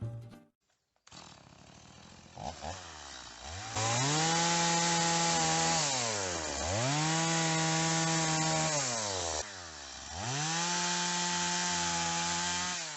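Two-stroke chainsaw revved up to full speed three times, each run held steady for two to three seconds before the pitch falls back toward idle, while sawing deadwood for firewood.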